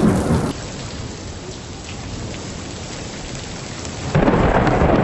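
Steady heavy rain, then about four seconds in a sudden loud crash of thunder that keeps rumbling.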